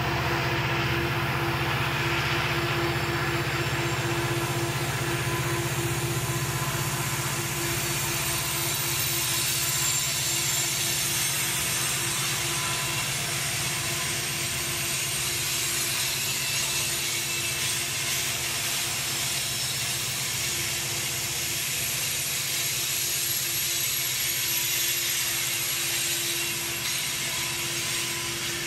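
BNSF oil train on an upgrade: the diesel engines of mid-train locomotives drone under load, strongest in the first several seconds. Loaded tank cars roll by with steady wheel and rail noise.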